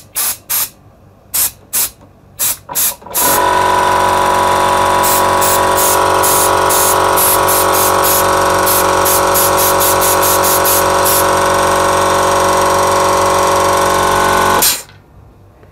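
Compressed air let out of an air compressor's airline: a series of short blasts, then one long continuous blast of about eleven seconds with a steady whistling tone over the hiss, which cuts off suddenly.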